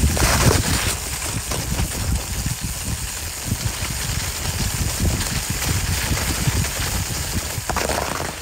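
Gravel bike rolling over a snow-covered track: a steady crunching rolling noise with low, irregular wind rumble on the microphone.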